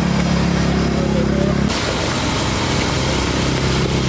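A motor engine running steadily with a low hum, its sound shifting abruptly a little under two seconds in.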